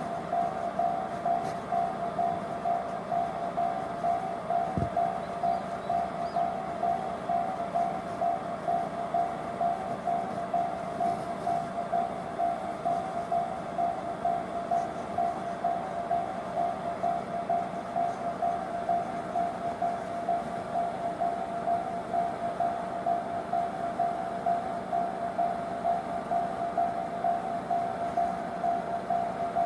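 Japanese level crossing's electronic warning bell, the JR standard tone, ringing steadily in an even, fast ding-ding of about two strikes a second.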